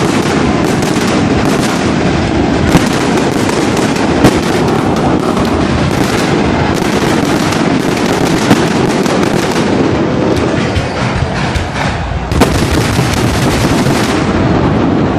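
Aerial fireworks going off in a dense, continuous crackling barrage with a few louder bangs, dying away near the end.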